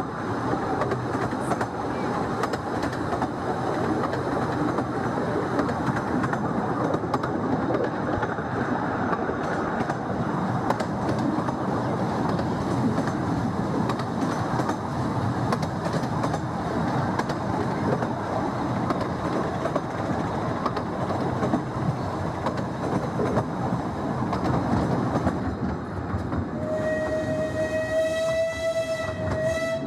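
Open carriage of a 15-inch-gauge miniature steam railway rumbling and clattering steadily over the rails. Near the end the steam locomotive's whistle sounds one long steady note.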